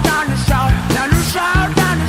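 Rock background music with a steady drum beat, guitar and wavering sung lines.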